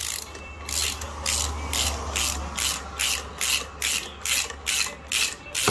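Ratchet wrench with a socket clicking in quick, even strokes, about three a second, as it turns a PTFE-taped bolt into a water-filled snowmobile crankshaft. This is meant to press the drive clutch off the crankshaft taper hydraulically.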